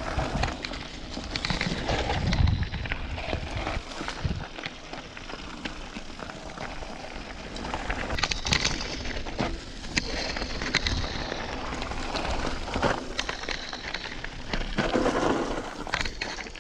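Mountain bike running fast down a loose gravel trail: tyres crunching over stones with the bike rattling and many sharp clicks of gravel and bumps, and wind buffeting the microphone in a low rumble.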